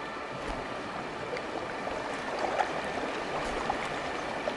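River water rushing past, a steady hiss of flowing water, with a few faint clicks about halfway through and near the end.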